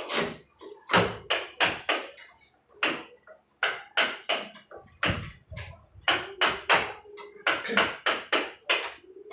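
Repeated sharp knocks on a wooden door during door-knob installation, about twenty strikes in irregular quick runs of two to four.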